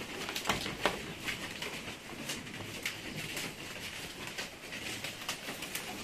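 Goats feeding on leafy branches in a raised slatted wooden pen: irregular light clicks, taps and rustles of hooves on the slats and leaves being pulled, over a faint steady background hiss.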